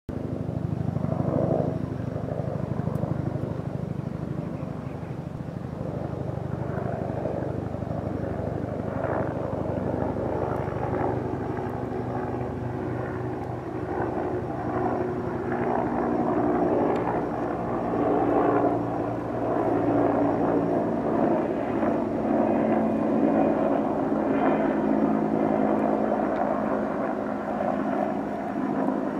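Bell UH-1 Huey firefighting helicopter flying overhead: the continuous rapid thumping of its two-bladed main rotor, a little louder in the second half.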